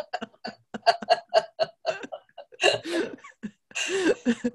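A woman laughing: a quick run of short 'ha' bursts, then a few longer breathy laughs.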